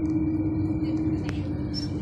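Tram running, heard from inside the car: a steady electric hum on one held tone over a low rumble.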